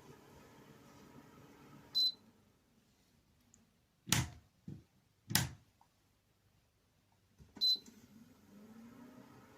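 UGHEY compressor dehumidifier's control panel giving a short high beep about two seconds in, after which its low running hum stops. Two loud knocks come in the quiet stretch, then a second identical beep near the end and the fan hum starts up again with a brief rising tone.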